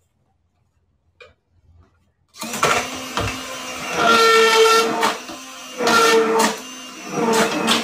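Handheld immersion blender puréeing butternut squash soup in a pot: it switches on about two and a half seconds in and runs with a steady motor whine, swelling and dipping in loudness a few times as it is worked through the soup.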